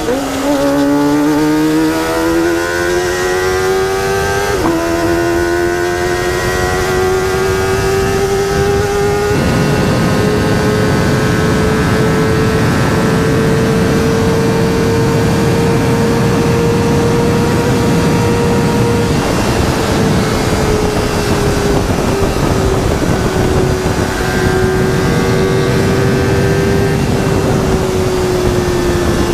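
Kawasaki ZX25R's 250 cc inline-four, breathing through a Sphere stainless-steel full-system aftermarket exhaust, revving out under acceleration: the engine note climbs steadily for about ten seconds. It then holds high revs at speed under heavy wind rush, easing off a little near the end.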